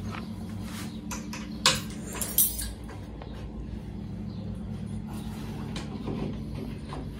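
An Allen key clicking against the metal bolts of an engineered-wood bed frame as they are undone: a few sharp metallic clicks in the first two and a half seconds, over a steady low hum.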